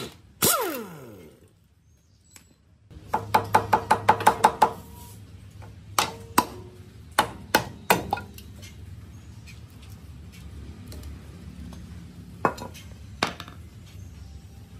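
Impact wrench on a bolt of an old engine: a brief whir that winds down in pitch, then a burst of rapid hammering for about a second and a half. After it come scattered metal clanks and knocks as the engine's rusty rocker cover is worked off.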